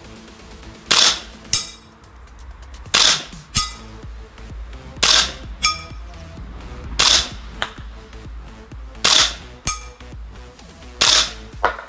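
HK416 gas blowback airsoft rifle firing single shots, six in all about two seconds apart. About half a second after each shot comes a sharper, lighter ping with a brief ring: the 0.32 g BB striking a frying pan target.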